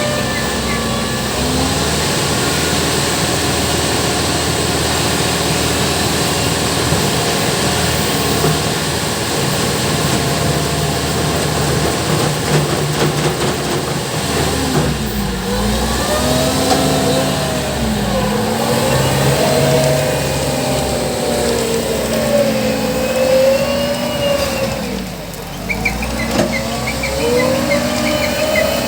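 Engine of road-construction machinery running steadily, then from about halfway through speeding up and slowing down again several times.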